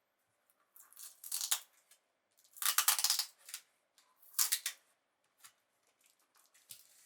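Earphone box packaging being handled and opened: three loud rustles about a second apart, with small clicks and taps between.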